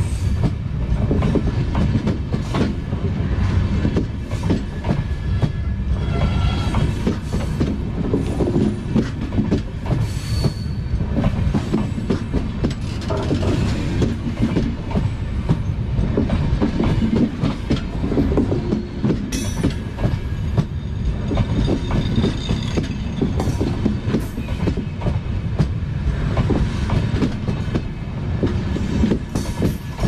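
Passenger coaches of an express train rolling past at close range: steel wheels clattering over the rail joints above a heavy, steady rumble. A faint high wheel squeal comes through about ten seconds in.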